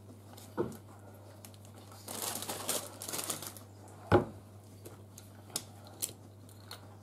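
Fresh parsley leaves rustling and crinkling as they are pressed down into a plastic hand-chopper bowl, with a few light knocks and clicks of handling on the counter and one sharp knock about four seconds in.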